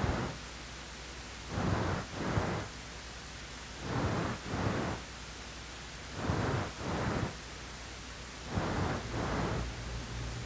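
Steady low hum with soft swishing noise that comes in pairs, about every two and a half seconds, with no speech or tones.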